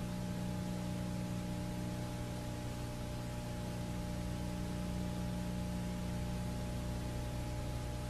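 Steady hiss with a low electrical hum and no other sound: the noise floor of an old video-tape copy running over a blank stretch.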